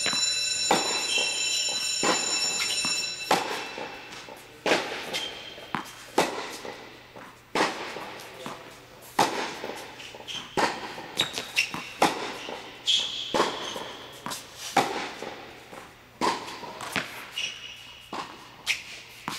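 Tennis ball struck by a racket in a steady baseline rally, a sharp pop about every one and a half seconds, each hit echoing in an indoor court hall.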